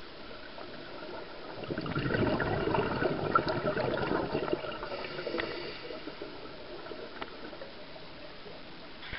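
Scuba diver's exhaled bubbles gushing from the regulator, heard underwater as a crackling burst for about four seconds starting about two seconds in, then fading to a quieter water hiss.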